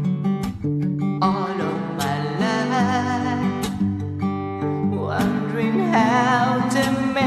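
A man singing with held, wavering notes over a strummed acoustic guitar. The voice comes in about a second in, breaks off briefly around the middle, and comes back.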